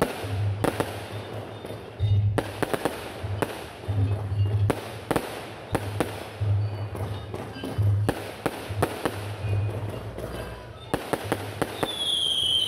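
Aerial fireworks bursting overhead: a rapid, irregular string of sharp bangs and crackles. Near the end a high whistle starts, falling slowly in pitch.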